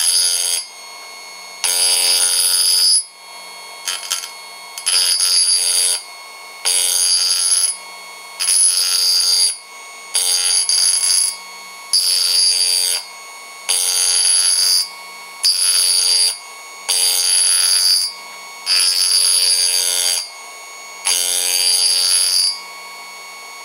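Parkside sharpening station's motor running with a steady whine while a chisel is slid back and forth across its grinding wheel, giving a harsh grinding rasp about every second and a half, each lasting about a second.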